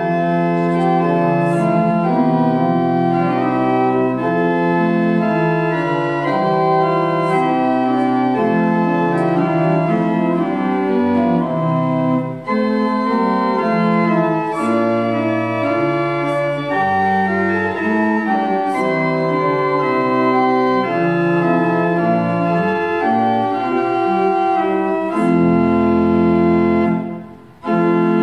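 Church organ playing a slow hymn in sustained chords that change about every second, with deep bass notes at times. It breaks off briefly near the end, then comes back in.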